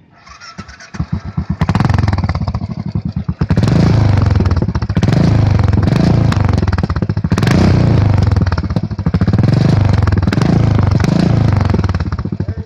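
Royal Enfield Continental GT motorcycle exhaust: the engine settles into a pulsing idle, then is revved up several times in a row, dropping back to an even, thumping idle near the end.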